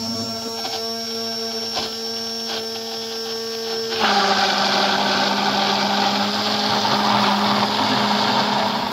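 Electric stick blender running at the bottom of a tall beaker of oil, egg, mustard and garlic, whipping it into mayonnaise. About four seconds in, its pitch drops a little and it grows louder and noisier as the mixture catches and thickens into an emulsion.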